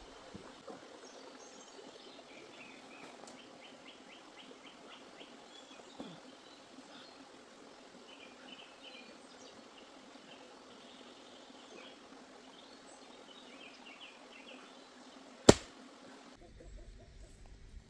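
Outdoor ambience with small birds chirping faintly in short repeated trills. A sharp, loud click comes about fifteen seconds in, and shortly after, the sound changes suddenly to a low rumbling noise.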